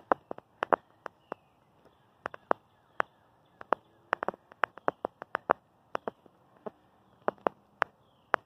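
Footsteps on an asphalt road: a run of sharp, uneven clicks, several a second, with faint high chirps in the background.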